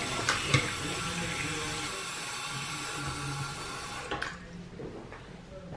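Water from a Kohler bathroom faucet running and splashing onto the metal pop-up drain stopper in a porcelain sink, with sharp clicks in the first second as the spring-loaded stopper is pressed. The water sound cuts off suddenly about four seconds in.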